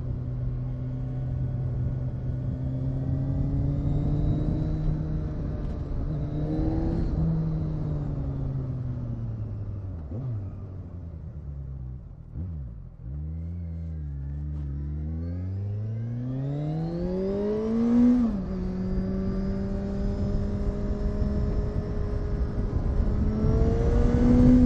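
Kawasaki Z1000SX's inline-four engine heard from the rider's seat while riding. The engine note falls as the bike slows for a sharp bend about halfway through, climbs under acceleration, drops suddenly at a gear change about eighteen seconds in, and rises again near the end.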